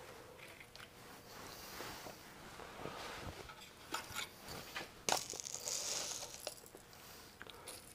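Faint handling noises: scattered light clicks and knocks, then a rattle of plastic molding pellets shaken in a glass jar about five seconds in.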